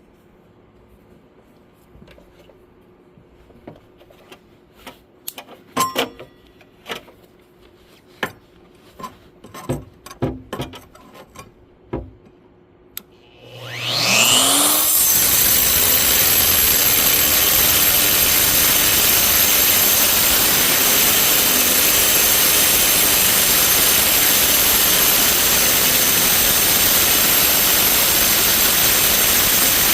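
Scattered knocks and clicks for the first half, then a Bauer 3-inch corded cutoff tool spins up with a rising whine about halfway through and cuts into 1/8-inch steel plate with a diamond-style blade, giving a steady, loud grinding noise.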